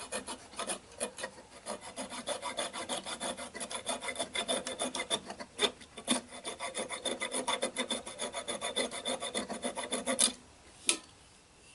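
Coping saw cutting with quick, even back-and-forth strokes through the protruding end of a wooden hammer handle and its yellow pine wedge, trimming them off flush with a ball-peen hammer head. The sawing stops about ten seconds in, followed by a single sharp knock.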